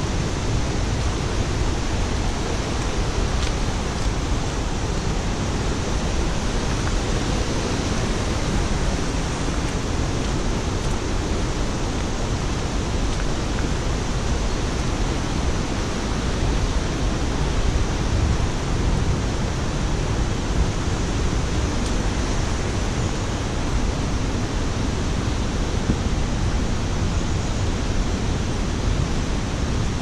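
Fast-flowing stream rushing steadily, an even hiss with a strong low rumble.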